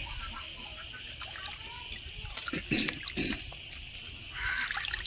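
Water splashing and sloshing in a basin as pearl spot fish are dipped by hand into warm salted tamarind water to soak before cleaning. There are a few short splashes about two and a half to three and a half seconds in, over steady high insect chirring.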